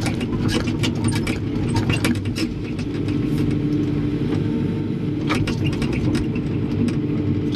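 Excavator's diesel engine running, heard from inside the cab, with a steady low rumble and scattered clicks and rattles as the bucket is worked down onto a sand pile. A steady hum joins about three seconds in.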